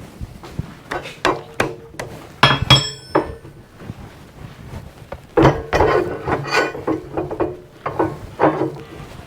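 Irregular metal knocks and clanks of steel parts being handled and tapped together, about a dozen strikes, one loud ringing clang about two and a half seconds in.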